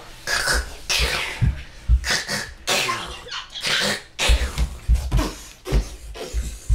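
A young boy making noisy mouth sound effects in short spitting, cough-like bursts, imitating his weapons' shots. Several dull thumps come as his knees and body hit a wooden floor, with a sharp one near the end.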